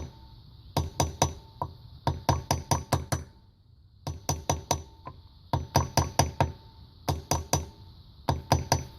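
Hammer tapping on a rusted-in diesel fuel injector of an old Case tractor, in quick runs of four to six taps, about five a second, with short pauses between, working the injector back and forth to break the rust seal.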